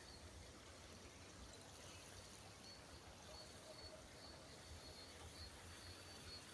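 Near silence: faint outdoor ambience, with a faint, thin, high tone coming and going from about three seconds in.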